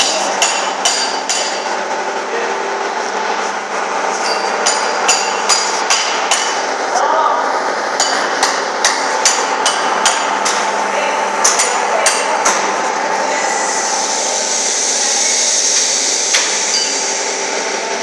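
Hammer blows in quick runs of several strikes, each with a metallic ring, over a steady machinery hum. This is hand hammering at a shoemaking bench.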